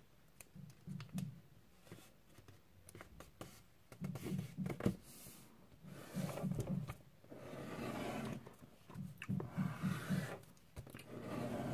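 A sheet of A4 paper being folded and creased by hand on a desk: quiet, intermittent rustling and rubbing as the paper is moved and the folds are pressed flat.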